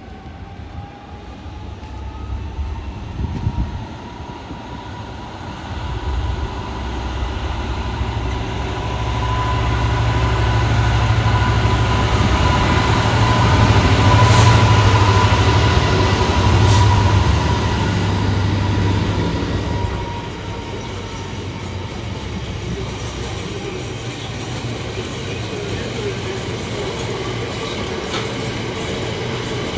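GB Railfreight Class 66 diesel locomotive 66728, with its EMD two-stroke V12 engine, approaching and passing with a low rumble and a high whine that build to a peak about halfway through, with two sharp knocks as it goes by. Then the steadier, lighter rolling clatter of the container wagons following behind.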